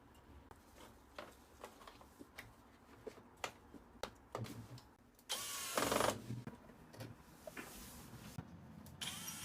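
Scattered light clicks and knocks of a washing machine's plastic panel and parts being handled and snapped back into place during reassembly, with a louder scraping, rustling stretch about five to six seconds in.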